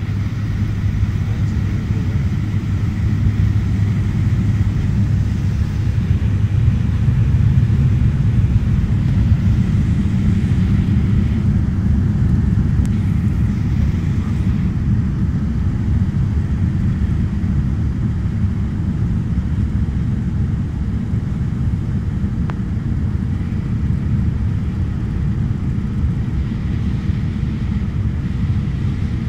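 Cabin noise of a Fokker 50 twin-turboprop airliner in flight on approach: the steady low drone of its engines and propellers with airflow rumble, heard from inside the cabin by a window, swelling slightly for a few seconds about a quarter of the way in.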